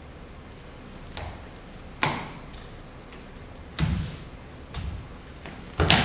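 About five heavy thumps or knocks at uneven intervals, each trailing off briefly, the loudest near the end.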